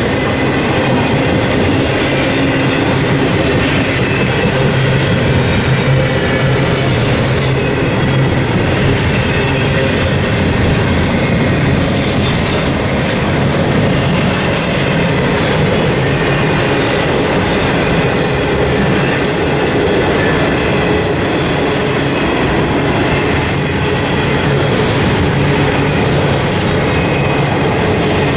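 Freight train cars rolling steadily past on the rails, with a loud, even, unbroken rumble and clatter of wheels on track.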